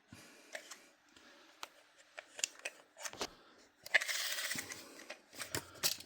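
Hands handling a plastic action figure and its parts: scattered light clicks and taps, with a short burst of rustling about four seconds in.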